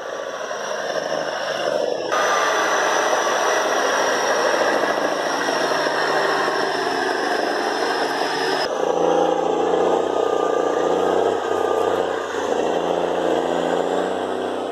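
Diesel engine of a loaded cabover logging truck running as it creeps along a rough dirt road, with a thin high whine running through the middle stretch. The sound changes abruptly about two seconds in and again near nine seconds, at cuts between clips.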